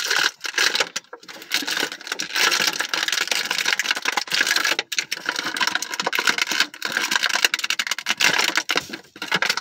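Clear plastic toy packaging crinkling and crackling as it is handled and pulled apart by hand, a dense run of crackles with a few short pauses.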